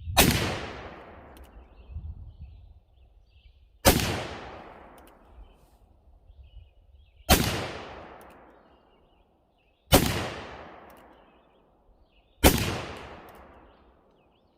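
Five shots from a black-powder 1851 Colt Navy .44 cap-and-ball revolver, fired a few seconds apart. Each is loud and sharp and trails off in a long echo.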